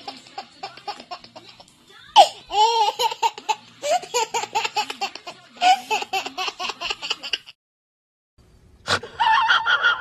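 A baby laughing hard in rapid, repeated bursts of belly laughter. After a short pause near the end there is a sharp click and a brief, different high-pitched sound.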